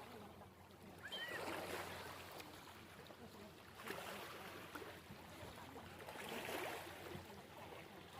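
Small waves washing in on the shore, swelling and fading about every two to three seconds, with a brief high bird chirp about a second in.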